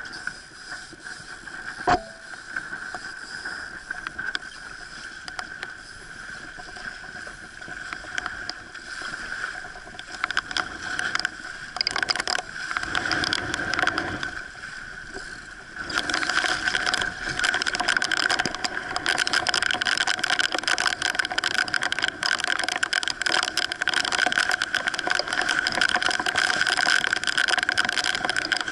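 Wind and water rushing past a Sea Hopper sailing dinghy under way in strong wind, with a steady high whistle running through it. It gets louder and choppier about halfway through, and there is a single sharp knock about two seconds in.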